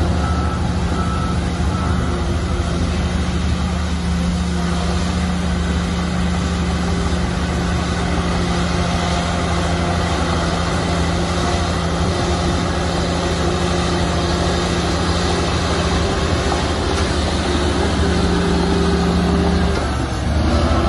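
Heavy diesel earthmoving machinery running steadily under load, a bulldozer or dump truck engine, with a faint beeping that stops about two seconds in.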